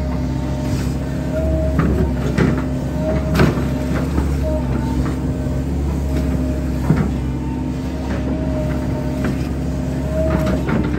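Hydraulic excavator running steadily, heard from inside the cab: a constant diesel engine drone with a higher hydraulic whine that rises and drops away every second or two as the boom and bucket move. A few sharp knocks and clanks come through, the loudest about three and a half and seven seconds in.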